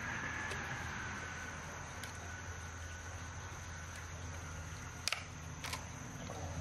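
Knife prying at a large freshwater mussel's shell: two sharp clicks about five seconds in, a little over half a second apart, as the shell is worked open. Underneath, a steady outdoor background with insects.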